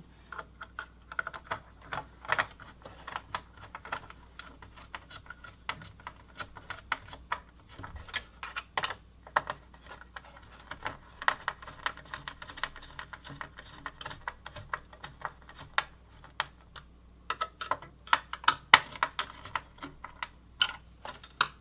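Plastic and metal parts of a Dell OptiPlex 780 desktop being handled and fitted during reassembly: irregular clicks, taps and knocks, several a second, with the loudest knocks near the end.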